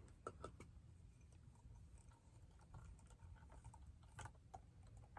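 Near silence with a few faint clicks and taps: clarinet parts and keys being handled as the bell is fitted onto the lower joint.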